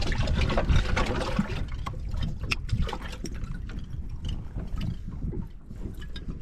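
Water splashing and dripping in a boat's livewell as a bass is lifted out, in irregular splashes and drips that slowly grow quieter.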